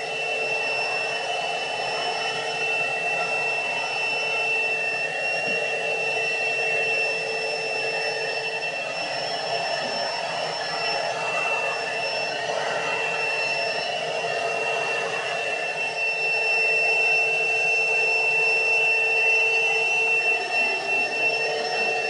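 MacAllister tub vacuum cleaner running steadily with a motor whine as its wand vacuums polystyrene beanbag beads off carpet, getting a little louder about sixteen seconds in.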